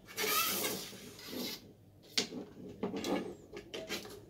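Telescopic carbon-fibre hand pole being extended: its sections slide out against each other with a hissy rub, then a sharp click just after two seconds in and several lighter clicks and rubs as further sections are pulled out and seat.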